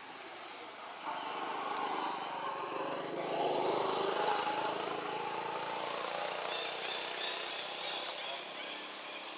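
A motor vehicle's engine passing, growing louder from about a second in, loudest around four seconds in, then easing off a little.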